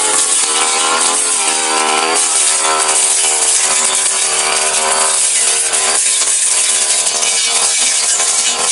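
Backpack brush cutter's small engine running hard while its blade cuts through grass and small brush, the engine pitch dipping and rising.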